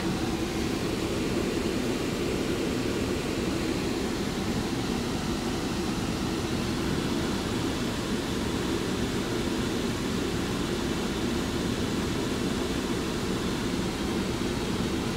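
Steady vehicle drone heard from inside a van's cab as it is carried forward on a tow truck: engine hum and road noise, even throughout.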